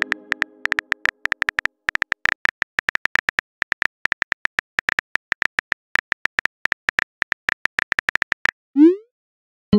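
Rapid virtual-keyboard tap clicks, the typing sound effect of a phone chat app, several a second for about eight seconds as a message is typed out. A chime rings out and fades in the first second, and a short rising swoosh comes near the end as the message is sent.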